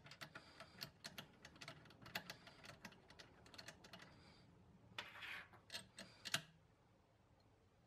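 Faint, irregular small metal clicks and taps of a nut being spun off by hand from a shotgun's adjustable recoil pad bracket, with a few louder clicks about five to six seconds in as the parts are handled and set down.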